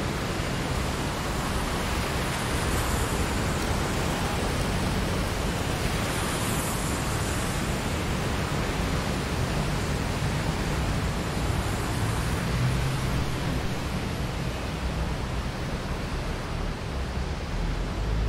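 Steady noise of passing road traffic: a continuous hiss with a low rumble that swells now and then, strongest about two thirds of the way in.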